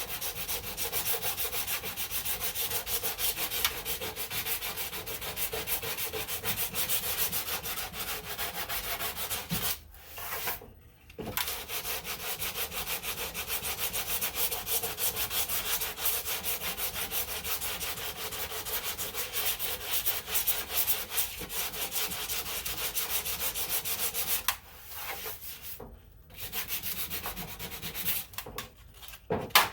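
Hand sanding block with 100-grit paper rubbed over cured body filler in quick back-and-forth strokes, shaping the filled dent. The strokes pause briefly about ten seconds in and twice near the end.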